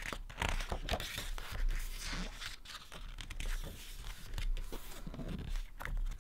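Pages of a large photobook being turned and handled: paper rustling in several swishes as a page is flipped over.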